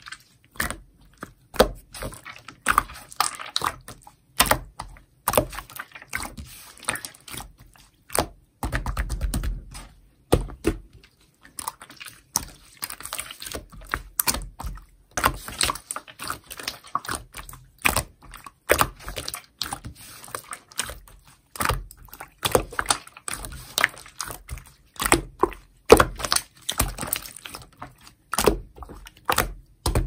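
Clear jiggly slime squeezed and kneaded by hand, giving a quick, irregular run of wet clicks and pops, with a longer, deeper squelch about nine seconds in.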